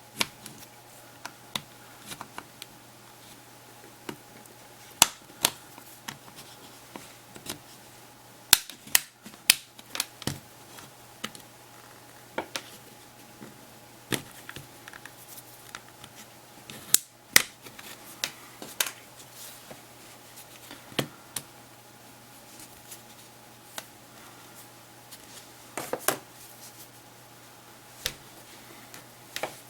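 A pry tool working around the seam of a Samsung Galaxy Player 5.0, its housing clips clicking and snapping loose as the front housing is separated from the rear cover. The clicks come irregularly, with a few louder snaps scattered through.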